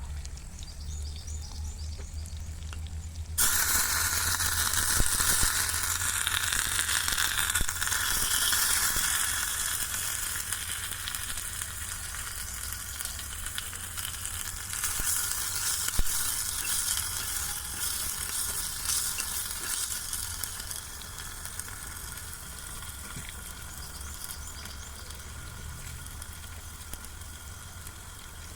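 Food hitting hot oil in a miniature frying pan. A loud sizzle starts suddenly about three seconds in, then slowly dies down as it keeps frying.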